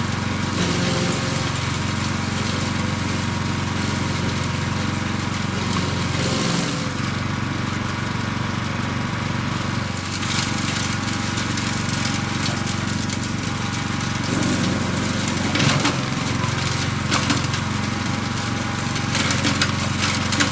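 Fuel-engined wood chipper running steadily, with branches cracking and splintering as they are chipped in short spells, several times through the stretch and most near the end.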